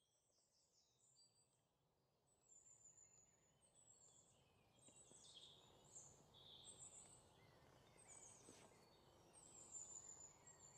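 Faint birdsong: many short, high chirps and trills, coming in about two seconds in and growing a little louder, over a faint steady outdoor hiss.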